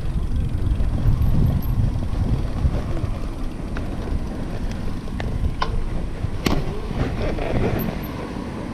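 Wind buffeting the microphone and tyre and road rumble from a bicycle riding along, a steady low rumble. A few sharp clicks and knocks come around the middle.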